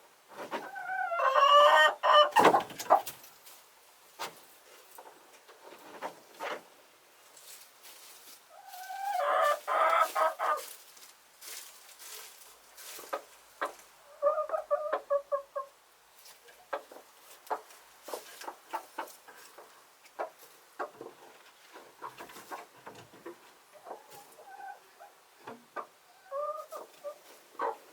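Chickens calling: two loud drawn-out calls, one near the start and one about ten seconds in, then a shorter call and softer clucks later. Scattered light clicks and taps run in between.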